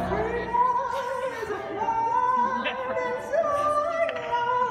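Male jazz vocalist singing high, held notes that slide and bend between pitches, accompanied by a grand piano.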